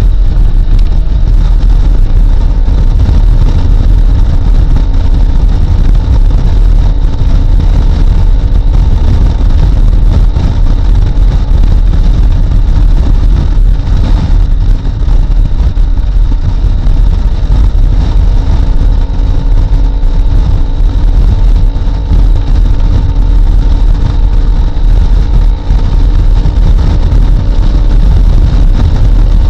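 Loud, steady wind rush on a bike-mounted camera microphone at highway speed, over the even drone of a Honda CRF250L's single-cylinder engine cruising.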